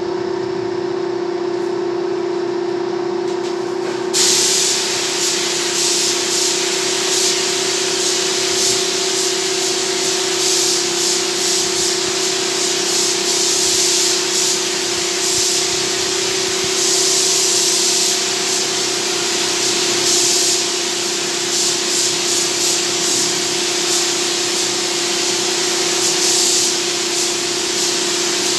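Gravity-feed spray gun hissing as it sprays a finish onto a CNC-cut MDF panel, starting about four seconds in and swelling and easing as the trigger is worked. A steady hum runs beneath it.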